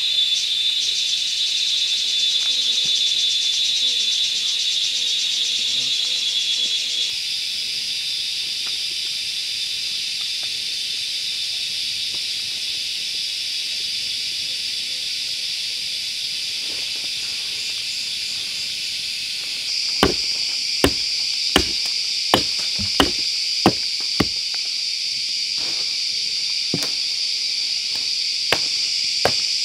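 A steady, high-pitched insect chorus throughout. From about two-thirds of the way in, a hatchet chops into wood: about seven sharp strikes in quick succession, then a few more, spaced further apart.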